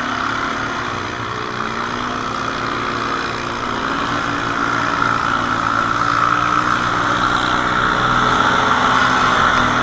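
ATV engine running steadily at low speed, its pitch drifting slightly up and down.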